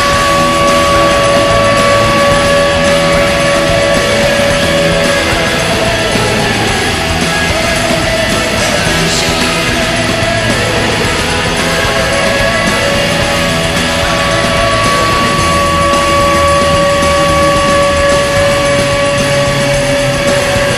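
Hockey arena goal horn blaring a long steady note over a loud rock goal song. The horn holds for the first few seconds, drops out while the music carries on, and sounds again from about two-thirds in until near the end.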